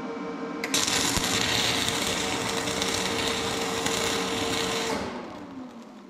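Flux-core MIG welding arc from a Lincoln Electric Power MIG 210 MP, starting suddenly and crackling for about four seconds before cutting out. As it stops, the welder's steady hum winds down in pitch as its power drops, which the welder takes to mean the load was too much for the household circuit breaker.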